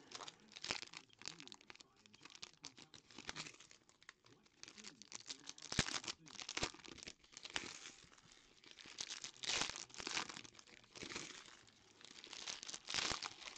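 Foil trading-card pack wrappers crinkling and being torn open by hand, in short irregular bursts of crackle.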